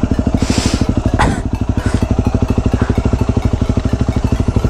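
Motorcycle engine idling with a steady, rapid pulsing exhaust beat. A short hiss comes about half a second in, and a brief falling tone just after a second in.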